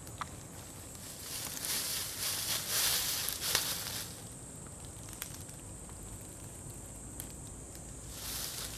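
Rustling of dry leaves and forest ambience: a rustling hiss swells from about a second in to about four seconds, and again near the end. Under it runs a faint steady high-pitched insect drone, with a few light ticks.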